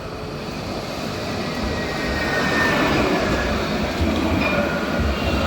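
Tram running past, with a steady rumble that grows louder and faint high wheel squeal.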